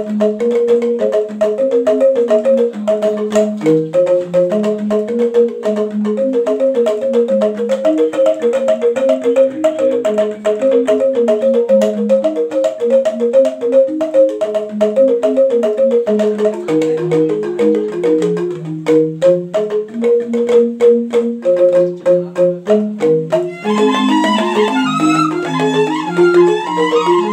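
Balinese rindik, a bamboo xylophone tuned to slendro, played with mallets by two players: a quick, running melody in the upper keys over a slower bass line. Near the end, bamboo suling flutes join with a wavering melody above it.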